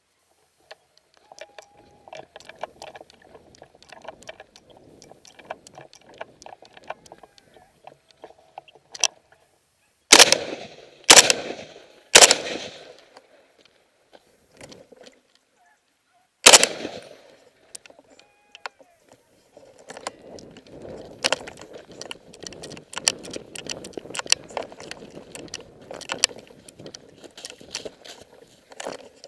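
Four hunting gunshots fired at a fleeing wild boar: three about a second apart, then a fourth a few seconds later, each followed by an echo off the hills. After them comes the rustle and footfall of someone running through grass and brush.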